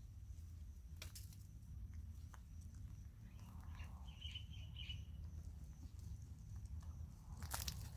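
Quiet outdoor ambience with a steady low wind rumble. A short run of faint high chirps comes about halfway through, and a burst of crackling rustles comes near the end.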